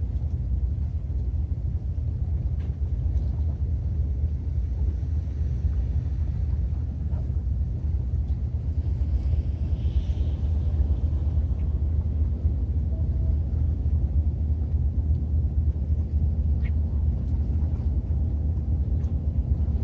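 Steady low wind rumble buffeting the microphone, with a few faint clicks.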